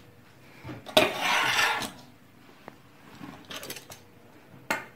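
Kitchen handling noises while börek dough is folded on the table: a loud burst of clattering, scraping noise about a second in, lasting about a second, then a few light taps and clicks.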